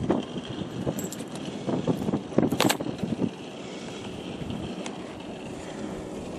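Steady wind noise on the microphone, with a short cluster of rustles, clicks and knocks about two to three seconds in.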